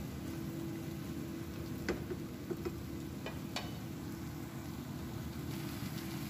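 Sauce cooking in a pan on the stove, a steady sizzle over a low hum, with a few light clicks of a utensil against the pan about two to three and a half seconds in.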